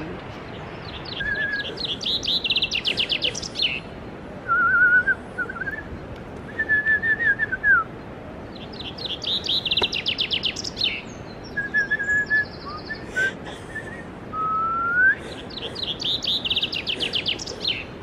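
A songbird singing rapid, high trilled phrases again and again, with a man whistling short, lower notes back to it in the gaps, one of them a rising whistle.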